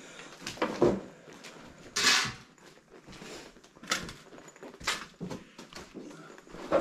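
A few irregular knocks and scrapes of debris being trodden on and shifted underfoot, with a longer crunching scrape about two seconds in and sharp clicks near the four- and five-second marks.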